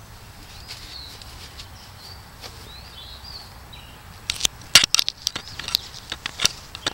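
Small birds chirping, then a quick run of sharp, crisp snaps starting a little past halfway, the loudest about two-thirds in: a grazing horse tearing off mouthfuls of grass.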